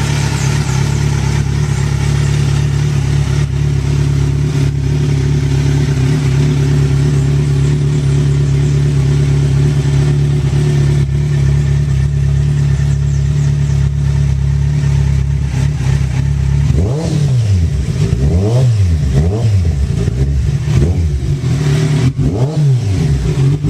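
Kawasaki Z1000SX inline-four motorcycle engine with a full exhaust system idling steadily, then blipped with the throttle repeatedly from about three-quarters of the way through, the revs rising and falling quickly each time.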